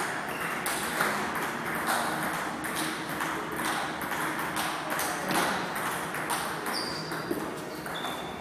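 Table tennis balls clicking off bats and tables during rallies: a fast, uneven run of sharp clicks.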